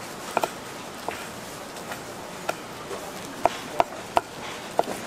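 Knife chopping sundae on a cutting board: about eight sharp knocks at irregular spacing, over steady background noise.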